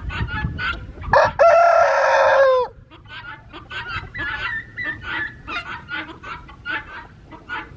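A rooster crows once, about a second in, one long call that drops in pitch at the end, over a flock of hens clucking with short repeated calls.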